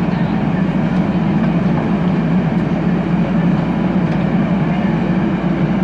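Diesel engine of a JCB 3DX backhoe loader running steadily under work, a continuous heavy rumble.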